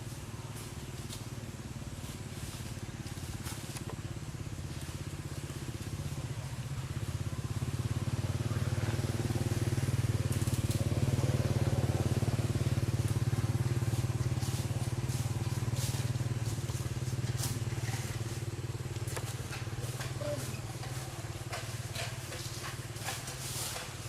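A motor vehicle's engine running as a steady low hum, growing louder to a peak about halfway through and then fading again. Scattered small clicks and crackles sound over it.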